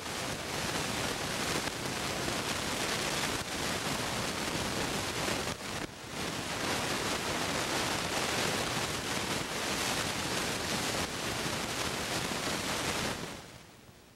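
Steady hiss of static noise, the soundtrack noise of an old home-movie transfer, swelling in at the start and fading away near the end, with a brief dropout about six seconds in.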